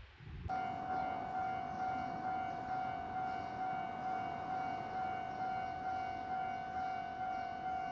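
Japanese railway level-crossing alarm switching on about half a second in: an electronic ringing tone that pulses about one and a half times a second, the warning that a train is approaching.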